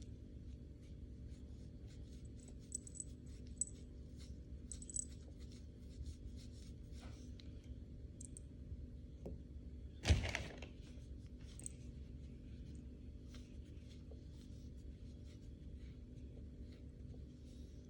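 Faint scattered clicks and small handling noises over a steady low hum, with one louder knock about ten seconds in.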